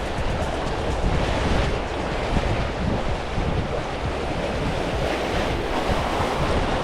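Wind buffeting the microphone over seawater washing against a slit-caisson breakwater, a steady rushing noise with heavy low rumble.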